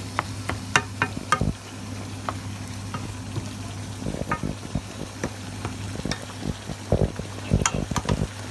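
A cooking utensil stirring a pot of chicken afritada as it cooks, with sharp clinks against the pot, bunched in the first second or so and again near the end, over a steady low hum.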